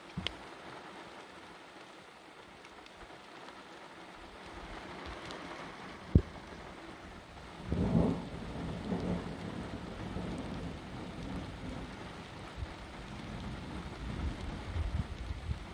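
Steady rain falling during a thunderstorm, with a single sharp knock about six seconds in. Thunder starts rumbling about eight seconds in and rolls on, rising again near the end.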